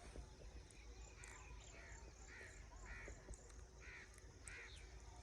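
Crows cawing faintly, a series of about six caws.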